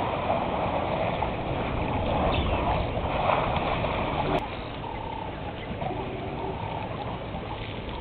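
Outdoor ambience from a waterhole camera microphone: a steady rushing noise that cuts down abruptly with a click about four seconds in. After that it is quieter, with a few short, even-pitched calls.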